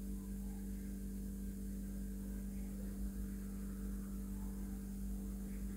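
A low, steady electrical hum with faint room noise, with no distinct sounds from the hook and yarn.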